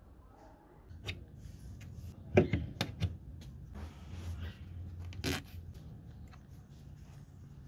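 Close handling noises: a handful of sharp plastic clicks and rubbing as a plastic wood-glue bottle is handled and its nozzle cap worked off, the loudest click a couple of seconds in.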